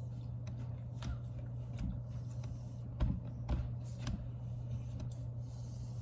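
A steady low hum with a few soft knocks and handling sounds, the loudest about three seconds in, followed by two lighter ones over the next second.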